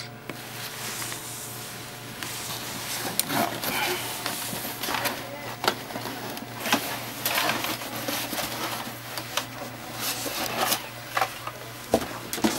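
Cardboard box and moulded packaging tray rustling and knocking as a plastic-shelled humanoid robot is handled and lifted out, with many scattered sharp clicks and bumps.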